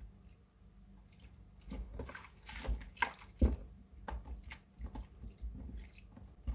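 Soaked glycerin soap plates being washed: irregular wet crackles and squishes, the loudest about three and a half seconds in.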